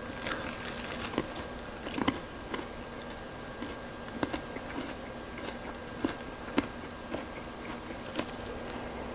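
Close-miked biting and chewing of crispy fried chicken: irregular crisp crunches of the coating, one every half second to a second or so.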